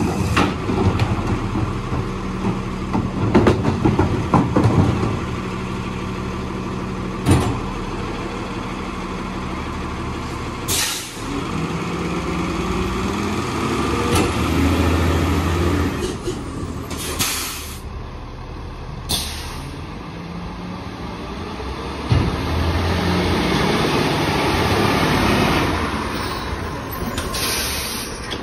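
Autocar ACX split-body garbage truck's diesel engine running, its note swelling twice under load. Short air-brake hisses sound about four times, with some clatter near the start.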